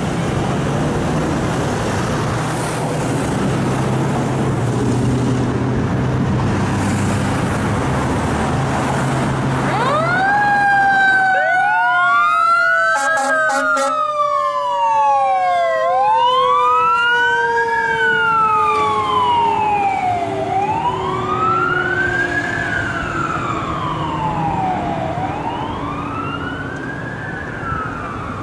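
Vehicle engine noise, then about ten seconds in the fire truck's sirens come on. An electronic siren wails up and down about every five seconds, and a mechanical siren winds up and then slowly falls in pitch. A brief horn blast comes a few seconds after the sirens start.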